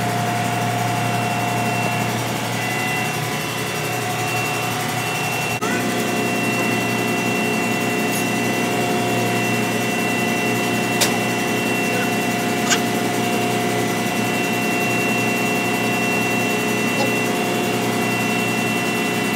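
Steady drone of ship's engine-room machinery running, with a few steady tones over a low hum; about five and a half seconds in, the note shifts as another tone joins. A couple of sharp metallic clicks from hand work on the pump.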